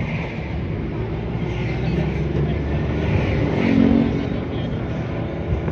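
Engine and road noise of a moving vehicle heard from inside its cabin, a steady low rumble, with a louder engine hum swelling about four seconds in.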